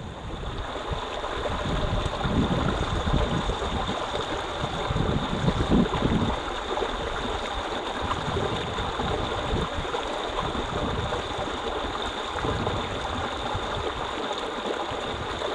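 River water flowing steadily, with irregular low rumbles that come and go during the first six seconds.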